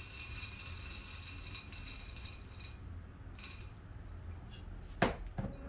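Akadama soil granules poured from a glass beaker into a plastic mesh ball planter, a faint pouring hiss that fades out about halfway. Near the end the glass beaker is set down with one sharp clink, the loudest sound, followed by a smaller knock.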